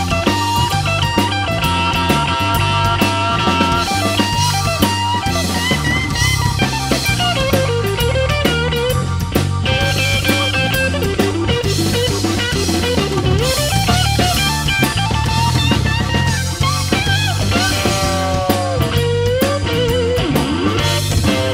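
Blues-rock band playing an instrumental break with no vocals: a lead guitar line with bent, gliding notes over bass and drums.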